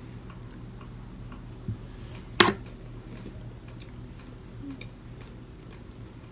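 Chewing sushi close to the microphone: faint wet mouth clicks, with a soft thump and then one sharp click about two and a half seconds in.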